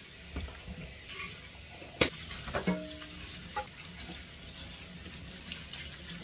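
Kitchen faucet running into a stainless steel sink as dishes are rinsed under it. One sharp clatter of dishware about two seconds in, then a few lighter knocks, one ringing briefly like metal.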